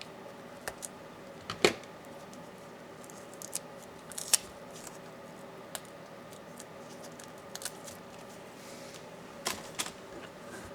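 Scattered small clicks and taps of laptop parts and tools being handled while taking apart a Dell Latitude 7410, with two sharper knocks about one and a half and four seconds in, over a faint steady hum.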